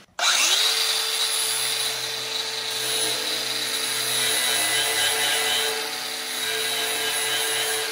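Angle grinder with a 60-grit beveled flap disc spinning up about a quarter second in, then running steadily as it grinds weld beads flush on a steel drum. A steady motor hum sits under the hiss of the abrasive on the metal.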